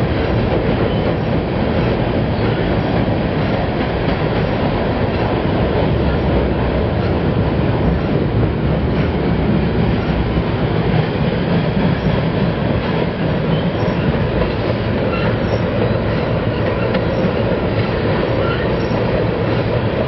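Freight train of hopper and tank cars rolling along the rails: a steady, even noise that holds at one level throughout.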